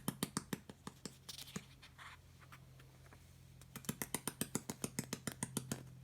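Rapid, evenly spaced clicking, about eight clicks a second, in two runs: one dies away about a second in, and another starts about four seconds in and stops near the end. A low steady hum runs underneath.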